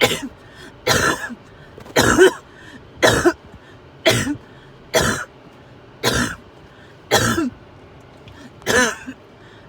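A sick person coughing with fever: a run of single coughs about one a second, nine in all, with a slightly longer pause before the last.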